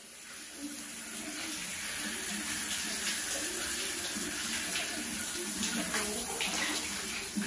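Shower running in a tiled shower stall: a steady hiss of spraying water that swells in over the first two seconds.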